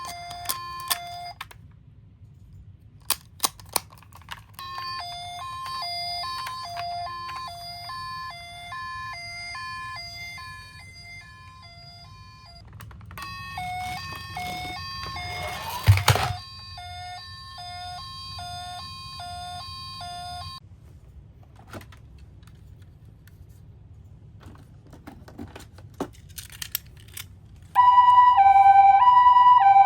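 Toy ambulance electronic sirens playing a hi-lo two-tone ambulance siren in stretches, with clicks and a loud clatter about halfway through. A much louder two-tone siren starts near the end.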